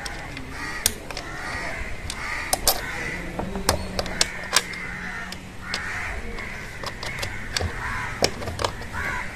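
Sharp clicks and knocks of tools and metal parts as the drive motor is fitted into a Whirlpool top-load washing machine, with a bird calling repeatedly over them.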